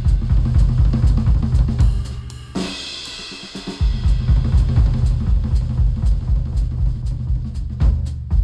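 Drum-driven instrumental music played through HIFIMAN Sundara planar-magnetic headphones and picked up by microphones at the earcups. A fast, dense beat with heavy kick and snare drops its low end for about a second around three seconds in, then comes back in full.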